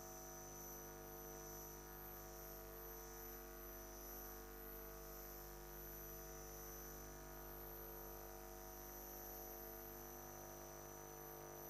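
Faint, steady electrical hum with a few constant thin tones and no other sound.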